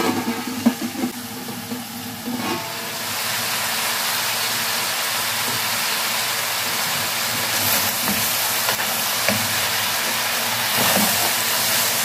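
Cabbage, carrots and hotdog slices sizzling in an aluminium pot on a gas burner: a steady frying hiss that grows louder about three seconds in. A short clink of the aluminium lid under a second in.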